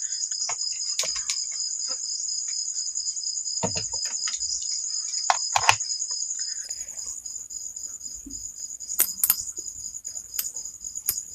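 Crickets chirping in a continuous high, fast-pulsing trill, with a few scattered clicks and taps of handling.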